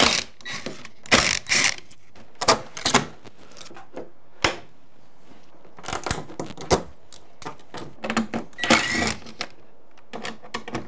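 Cordless drill running in short bursts as it backs the screws out of a pre-hung door's split jamb, with sharp clicks and knocks between the bursts.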